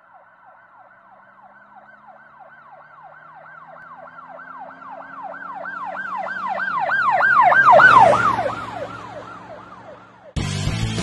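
An emergency vehicle's siren: a fast falling wail repeating several times a second. It grows steadily louder as it approaches, peaks about eight seconds in, then drops in pitch and fades as it passes, with a low vehicle hum underneath. Loud guitar music cuts in abruptly near the end.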